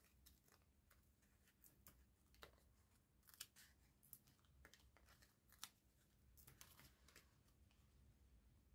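Near silence with scattered faint clicks and rustles of hands peeling small foam adhesive dimensionals off their backing sheet and pressing them onto a cardstock panel.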